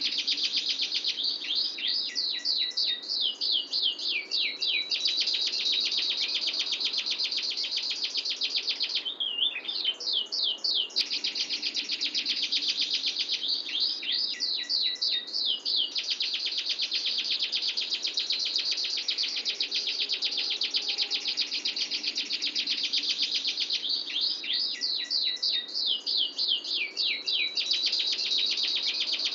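Domestic canary singing a long, unbroken rolling trill of very rapid repeated notes, broken up four times by runs of quick downward-sweeping notes.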